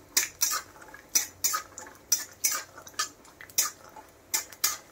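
Flat metal spatula clinking and scraping against a metal kadhai while stirring raw peanuts frying in a little hot oil, in quick irregular strokes about three a second.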